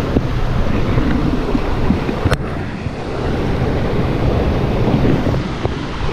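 Shallow mountain stream rushing over stones, with wind rumbling on the microphone. One sharp click a little over two seconds in.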